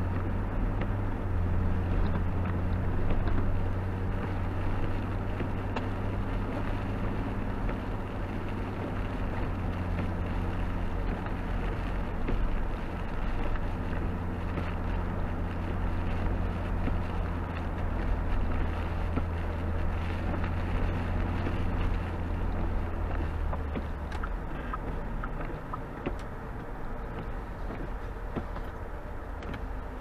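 Car driving: a steady low engine hum over road noise. The hum fades out about four-fifths of the way through, leaving the quieter road noise.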